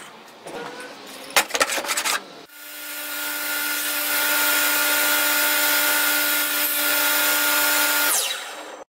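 Old cast-iron bandsaw, running on prototype bearing blade guides, cutting through a board of OSB. A steady whir with a hum in it starts about two and a half seconds in, builds for a second or so, holds level, and stops fairly suddenly near the end. It follows a few sharp knocks and clatters in the first two seconds.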